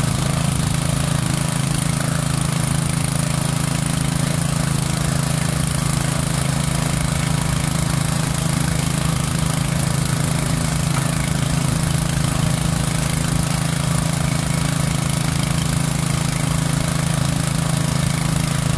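Doosan crawler excavator's diesel engine running at a steady, unchanging speed while it digs.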